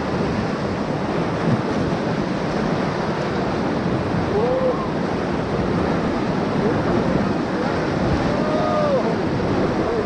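Whitewater churning and rushing steadily around an inflatable raft held sideways in a river hole, as the raft surfs the recirculating wave. A few brief shouts rise over it about halfway through and near the end.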